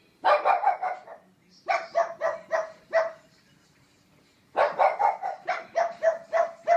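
Pug barking in three runs of short, quick barks: a fast flurry at the start, a string of about five evenly spaced barks around two seconds in, and a longer string of barks from about four and a half seconds on.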